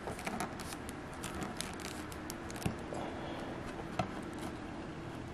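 Fingers handling a plastic action figure, pressing a plastic blood-splatter effect onto it with sticky tack: small scattered clicks and rubbing, with two sharper clicks in the second half.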